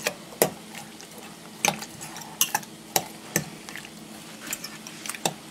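A metal spoon stirring a liquid marinade in a glass measuring cup, clinking sharply against the glass at irregular moments.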